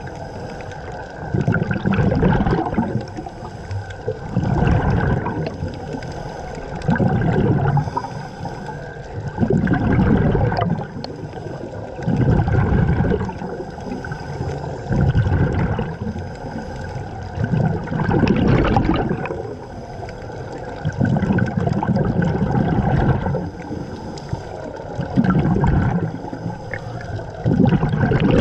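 Scuba diver's exhaled bubbles bursting from the regulator underwater, a bubbling rush about every two and a half to three seconds in the rhythm of slow breathing, with a quieter steady background between breaths.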